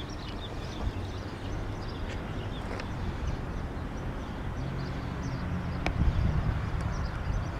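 Outdoor ambience: a steady low rumble with faint bird chirps over it, and a single sharp click about six seconds in.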